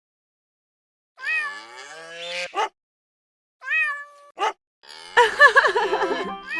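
Short high-pitched vocal cries that slide up and down in pitch, in two bursts. From about five seconds in, more cries come over light music.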